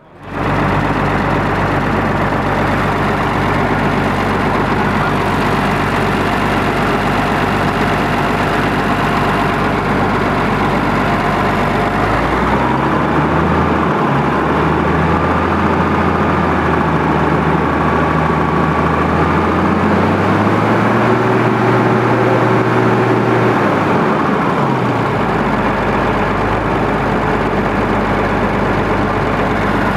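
Fendt 626 LSA tractor's diesel engine heard at its exhaust stack, idling steadily, then revved up about twelve seconds in and held. It is raised higher again around twenty seconds, then drops back to idle near twenty-five seconds.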